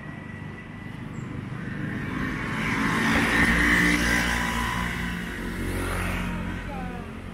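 Street traffic: a motor vehicle's engine passing close by on the road, growing louder to a peak about three to four seconds in and then fading.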